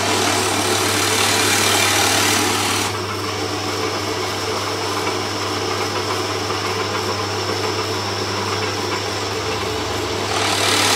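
Drill press running with a steady hum, its 20 mm bit cutting into a small piece of turned wood: one cut of about three seconds at the start and a second near the end. These are stopped-depth holes bored into the nutcracker's wooden feet to take the legs.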